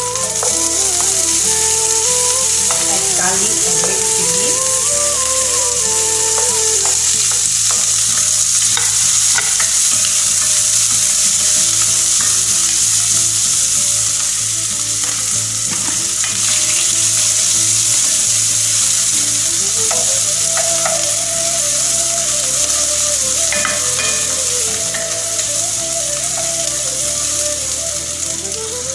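Onions, chilies and bean curd sizzling in hot oil in a pan, with a steady hiss and occasional scrapes and clicks as they are stirred with a wooden spatula.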